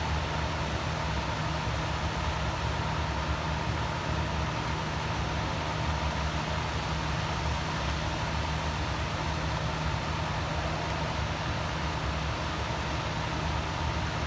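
Steady rushing roar of water pouring over the dam falls, even and unbroken.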